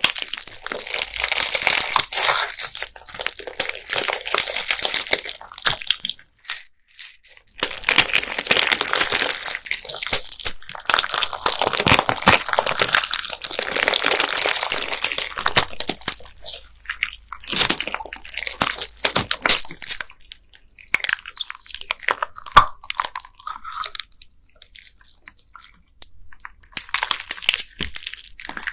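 Handmade slime packed with plastic beads being squeezed and pressed by hand: dense, crunchy crackling in long stretches. It breaks off briefly about six seconds in and turns sparser and quieter in the last third.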